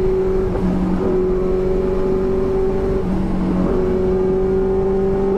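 Benelli TNT600's inline-four engine running steadily under way, heard from the rider's seat over road and wind rush. The engine note holds steady, dipping briefly about half a second in and again around three seconds in.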